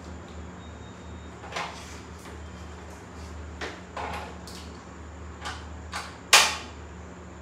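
Scattered light clicks and knocks of hands on a top-loading washing machine's control panel and a wall switch, with one much louder sharp knock near the end, over a low steady hum.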